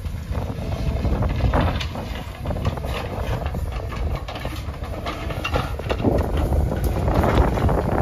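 Tata Hitachi Shinrai backhoe loader's diesel engine running under load while the backhoe bucket drags and spreads loose soil, with several bursts of scraping and knocking from the bucket in the dirt, the loudest near the end.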